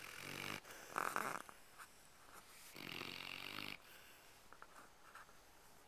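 A sleeping dog snoring. One snore ends about half a second in, a short, louder breath comes about a second in, and a longer snore runs from just under three seconds to about four seconds in.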